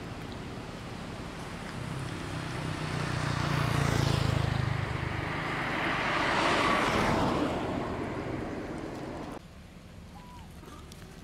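Road traffic passing: vehicle noise with a low rumble swells to a peak about four seconds in and again about six to seven seconds in, then fades and cuts off suddenly about nine and a half seconds in, leaving a quieter background.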